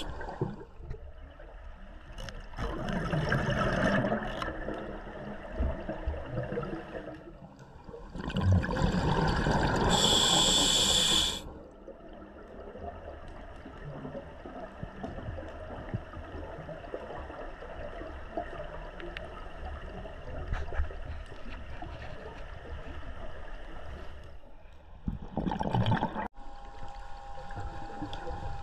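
A scuba diver breathing through a regulator, heard underwater: exhaled bubbles burble out in three bursts, the second ending in a short high hiss of inhalation. Between breaths there is a faint crackle of small clicks.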